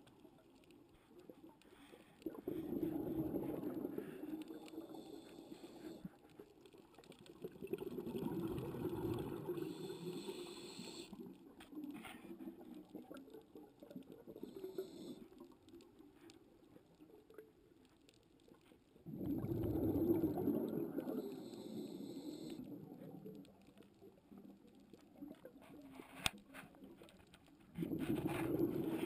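A scuba diver's regulator exhaust bubbles, heard underwater: four bursts of low burbling rush, each about three to four seconds long, separated by quieter gaps with faint hiss between breaths.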